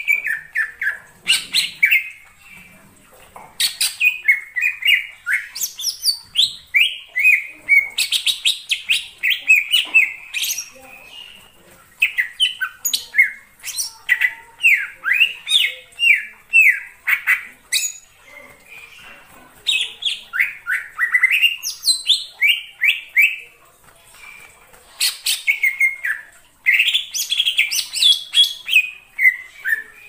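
Green leafbird (cucak ijo) singing: quick runs of varied sliding whistles and chirps, in bouts of several seconds broken by short pauses.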